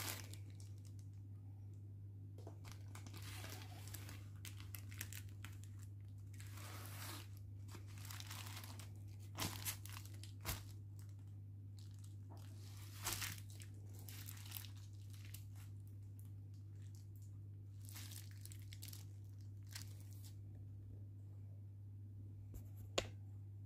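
Intermittent crinkling and rustling in short bursts, with a few sharp clicks, over a steady low hum.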